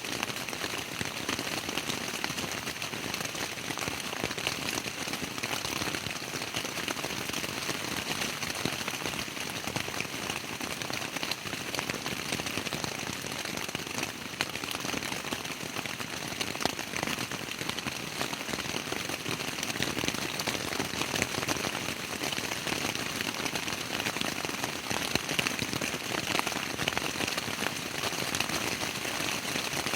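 Steady rain pattering on a tent's fabric, a dense hiss of countless small drop impacts.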